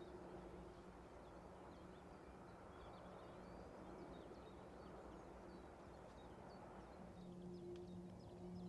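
Near silence: faint outdoor ambience with scattered distant birdsong chirps and a low steady hum that grows louder near the end.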